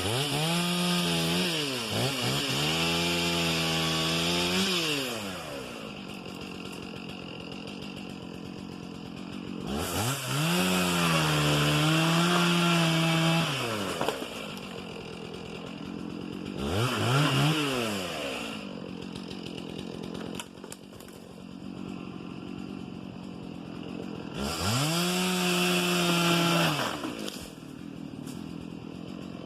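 Two-stroke chainsaw revving to full throttle and holding there in four bursts of one to five seconds, cutting cedar, dropping back to a steady idle between bursts.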